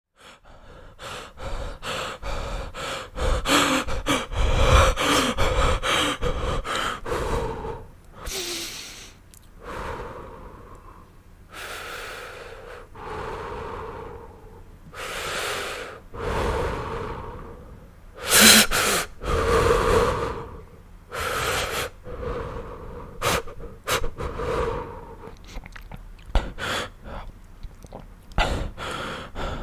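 A sick man breathing heavily and laboriously, with wheezing, rasping in-and-out breaths and sharp gasps. The breaths come fast and ragged at first, then slower and more drawn out.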